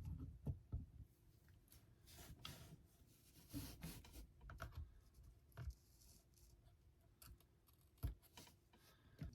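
Near silence broken by faint, irregular clicks, taps and scrapes of small parts and wire being handled during soldering, over a faint steady hum.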